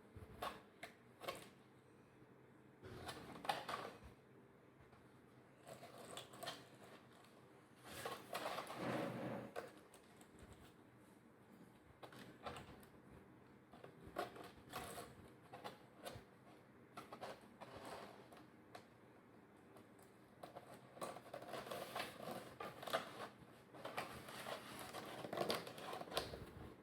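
Faint, irregular clicks and taps with stretches of scraping or rustling, like small objects being handled.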